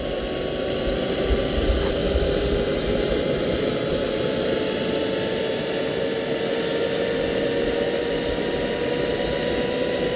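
Micro gas turbine jet engine running on kerosene: a steady rushing roar with a whine that rises slowly in pitch as the engine spools up.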